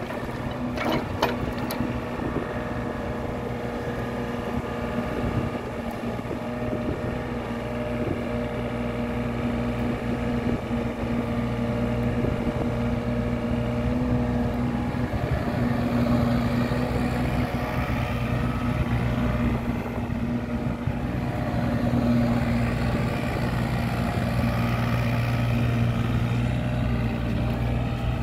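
Takeuchi TB28FR mini excavator running steadily while it works, its engine note with a steady whine above it as the boom and arm move and the upper structure swings, growing louder from about halfway. A few sharp clicks about a second in.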